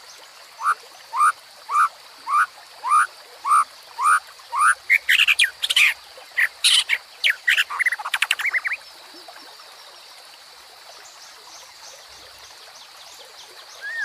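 White-rumped shama singing over a babbling stream. A run of about eight rising whistled notes, evenly spaced about half a second apart, turns into a fast, jumbled phrase of higher notes and trills that stops about two-thirds of the way through, leaving only the steady rush of the water.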